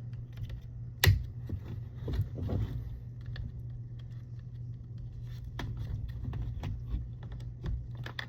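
Plastic fuse box housing being pried apart by hand: scattered small clicks and scrapes from its latches and case, with one sharp snap about a second in, over a steady low hum.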